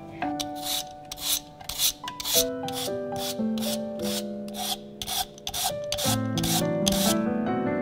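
Rhythmic rasping strokes of hand food preparation, such as grating or scraping, about two a second, stopping shortly before the end, over soft piano background music.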